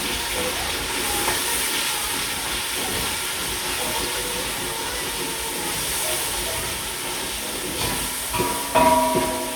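Pumpkin cooking in a pot with dried thyme, giving a steady sizzling hiss. A short pitched sound cuts in near the end.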